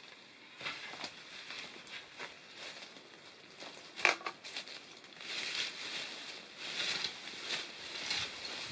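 Brambles and vines rustling and crackling as they are pulled and dragged through dense undergrowth, with a single sharp knock about four seconds in.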